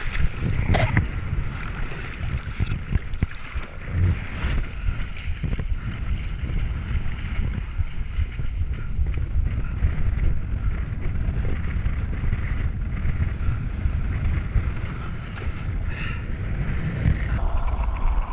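Wind rumbling and buffeting on the microphone over water splashing against a windsurf board, a steady noisy rush with a heavy low rumble.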